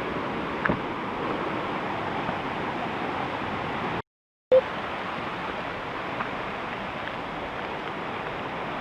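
Steady rushing of river water. The sound drops out completely for half a second about four seconds in, then the rush carries on unchanged.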